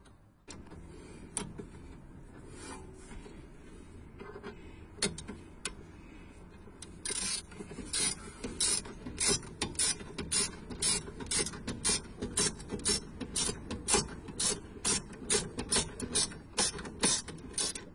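Socket ratchet clicking as it turns in the rear brake caliper's guide bolt. There are a few scattered clicks at first, then from about seven seconds in a steady run of about two to three clicks a second.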